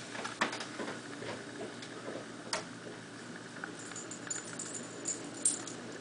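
Steady hiss of blizzard wind driving snow, broken by scattered light clicks and ticks, with a cluster of sharper high ticks about four to five and a half seconds in.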